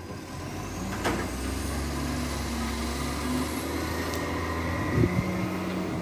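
Recycling truck's engine running and pulling away, with a faint rising whine. A sharp click comes about a second in, and a louder thump near the end.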